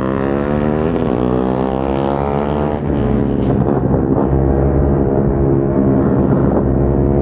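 Single-cylinder sport motorcycle engine with an aftermarket exhaust running hard under throttle, its pitch rising and dipping briefly a few times, getting louder about three seconds in.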